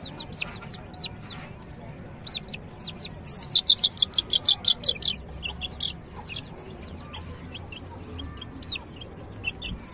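Young chicks peeping in short, high chirps. The peeps come loudest and fastest in a quick run of about a dozen a few seconds in, with scattered peeps before and after.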